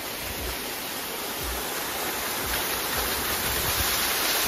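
Small waterfall pouring onto rocks into a shallow pool: a steady rush of falling water.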